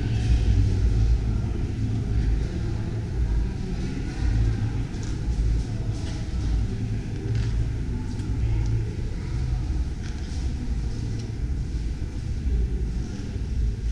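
The rear-mounted four-cylinder engine of a 1964 Renault Dauphine idling steadily.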